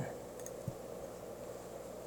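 Quiet room tone with a faint steady hum, and one short soft knock a little under a second in.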